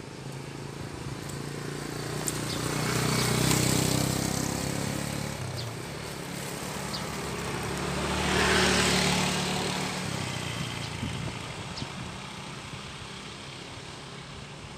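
Road traffic passing: two motor vehicles go by one after the other, each engine swelling and then fading. The first peaks about three seconds in and the second, deeper one about eight seconds in.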